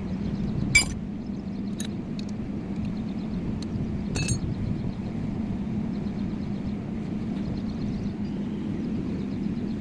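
A few sharp metallic clinks of tools or parts during brake work, the loudest about a second in, over a steady low hum.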